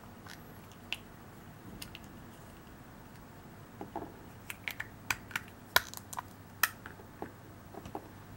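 Light plastic clicks and taps from a small toy Poké Ball capsule and figurine being handled: a couple of scattered clicks, then a quick run of sharper clicks about halfway through.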